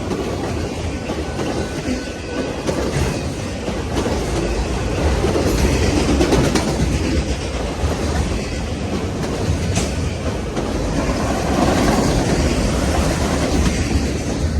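Freight train of autorack cars rolling past at close range: a steady, loud rumble with wheels clicking over the rail joints.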